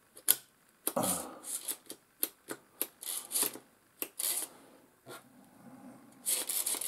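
Irregular clicks, taps and rattles from a plastic spring-loaded desoldering pump being handled, with a sharp click just after the start.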